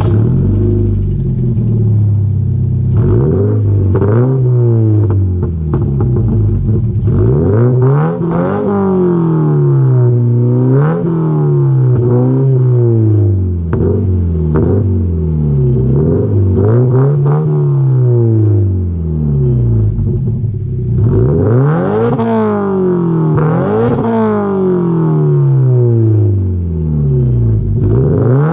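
Scion FR-S's 2.0-litre flat-four engine through a catless, non-resonated straight-pipe exhaust, running steadily at first and then revved again and again, its pitch rising and falling about every two seconds. A few sharp pops and crackles come from the exhaust.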